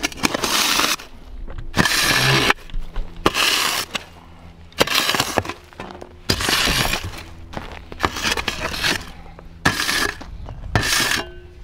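A shovel digging earth off an underground roasting pit to uncover the meat, in about eight scrapes and scoops roughly a second and a half apart, some with a short metallic ring.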